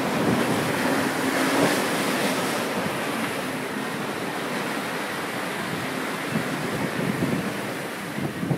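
Wind buffeting the microphone over the rush of sea water along a sailing yacht's hull as it drives through rough, choppy seas, throwing spray off the bow wave. The rush is loudest in the first couple of seconds, then settles to a steady roar.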